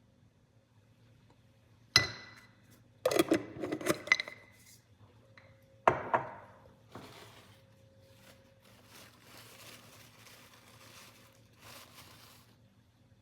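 Dishes clinking together: a sharp ringing clink about two seconds in, a quick run of clinks a second later, and another ringing knock near six seconds, followed by faint rustling.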